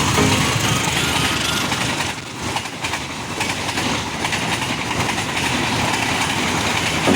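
Passenger train passing at speed: steady rushing noise of the cars and wheels on the rails.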